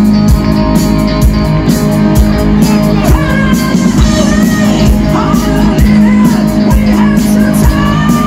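Live rock band playing loud, with electric guitar over a steady drum beat. A male singer comes in on the microphone about three seconds in.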